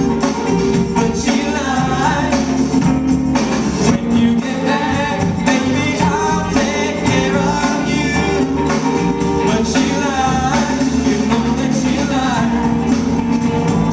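Live rock band playing a song: a male lead vocal with female backing singers, over electric guitars and drums.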